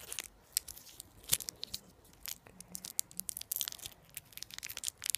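A sweet wrapper being torn open and crinkled by hand: an irregular run of sharp crackles and small rips.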